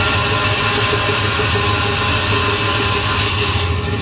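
Band saw running and cutting through a thick block of wood: a steady motor hum under the hiss of the blade in the wood. The cutting hiss drops away somewhat near the end.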